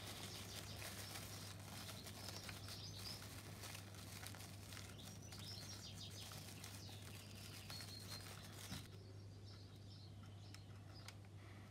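Faint crinkling and rustling of cling film as gloved hands wrap and press it around a model aircraft's undercarriage wheel, stopping about nine seconds in, over a steady low hum.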